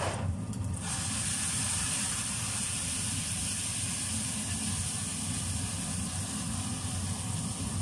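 Chicken broth poured from a steel bowl into a pot on the stove: an even hiss of liquid streaming and splashing in, starting about a second in, over a steady low rumble.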